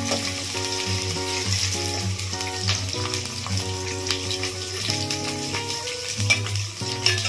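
Sliced onions and green chillies sizzling in hot oil in a steel pot, stirred with a steel ladle that clinks against the pot a few times.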